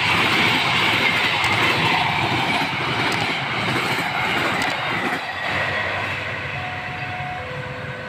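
Passenger train coaches running past on the rails: a steady wheel-and-rail rumble with a high ringing tone that slowly falls in pitch, fading as the train draws away.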